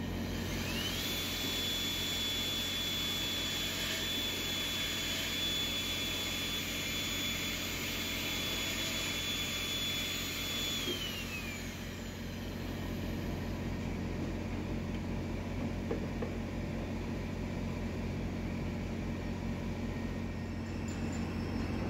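Magnetic drill's electric motor spinning up with a rising whine, running steadily while the twist drill bores into a steel block, then winding down with a falling whine about eleven seconds in. A steady low hum continues underneath throughout.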